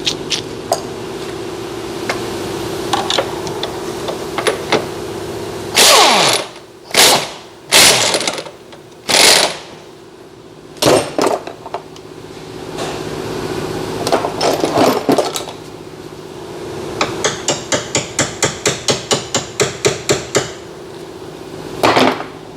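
Impact wrench run in several short bursts on the rear shock fasteners, each burst falling in pitch as it spins down. Near the end comes a quick run of ratchet clicks, about four or five a second.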